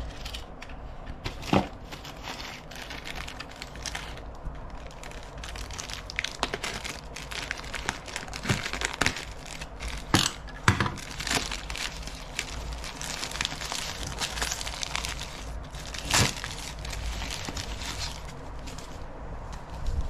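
Watch packaging being handled and opened: crinkling and rustling of wrapping with many small clicks and a few sharper knocks.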